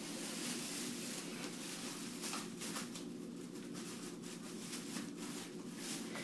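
Thin plastic carrier bags rustling and crinkling in irregular bursts as a dog noses and digs through them, over a steady low hum.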